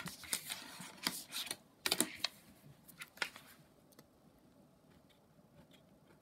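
A run of light clicks and scratching as a straight line is drawn, lasting about three and a half seconds, then quiet room tone.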